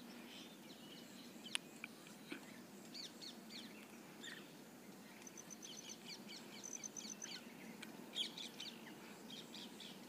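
Faint chirping of small birds: scattered short calls, with two quick runs of high-pitched notes around the middle. A single sharp click comes about one and a half seconds in, over a faint steady hiss.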